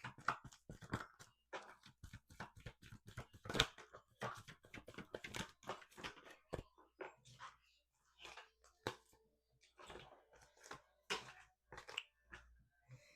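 A deck of oracle cards being shuffled by hand: a fast, irregular run of soft card slaps and rustles, thinning out in the second half.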